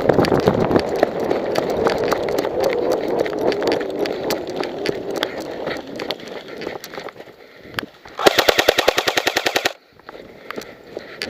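Electric airsoft rifle firing one full-auto burst of about a second and a half, a rapid even rattle of roughly 15 shots a second that cuts off suddenly. Before it comes about six seconds of rustling movement noise with a few scattered clicks.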